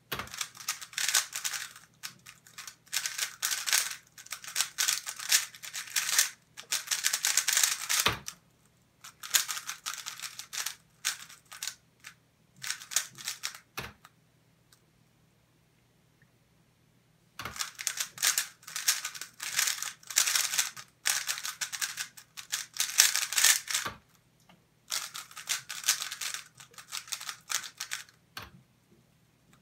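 A MoYu Weilong GTS3M Lite 3x3 speedcube being turned at speed: rapid plastic clicking and clacking of the layers, in runs of a few seconds separated by pauses. A few single sharp taps fall between the runs.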